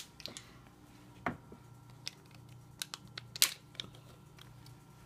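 Scattered clicks and crinkles of small plastic tubs of concentrated beef stock being handled and opened by hand, with a louder snap about a second in and the sharpest one about three and a half seconds in.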